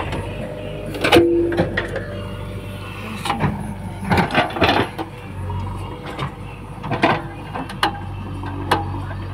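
A JCB 3DX backhoe loader's diesel engine running steadily while its backhoe arm digs soil. Several sharp knocks and clanks come irregularly from the bucket and arm linkage.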